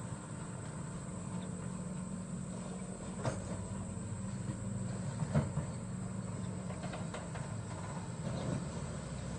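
Sany SY75 excavator's diesel engine running steadily, with two sharp knocks, the louder one about five seconds in.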